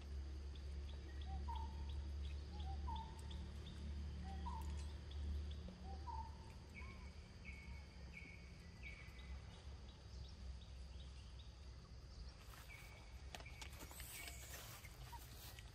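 Birds calling faintly: a short rising note repeated about every second and a half, then higher short notes later, over a low rumble that drops off about six seconds in.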